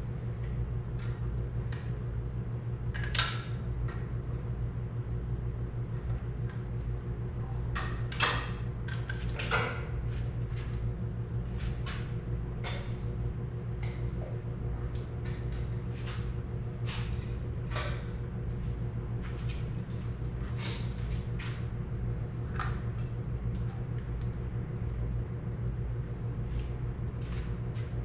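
Steady hum of a shop fan, with scattered metal clicks and knocks as tools and parts are handled on a Farmall Super C tractor engine during a head gasket replacement. Two knocks, about three seconds in and about eight seconds in, are the loudest.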